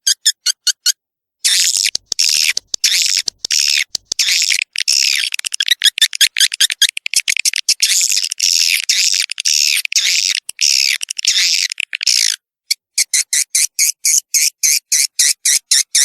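Swiftlet lure call: recorded swiftlet twittering, loud, fast, high chirps in dense runs, broken by sudden short gaps. Near the end it turns to rapid pulsed chirping. The sound is made to attract young swiftlets into a new nesting house.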